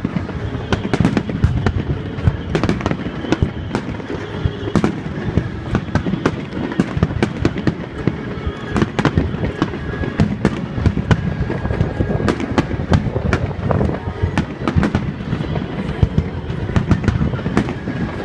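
Grand-finale fireworks barrage: many overlapping bangs and crackles in rapid, unbroken succession. Strong wind buffets the microphone with a low rumble underneath.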